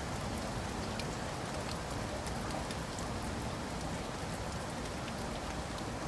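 Steady rain falling on hard surfaces, an even hiss with scattered individual drop ticks.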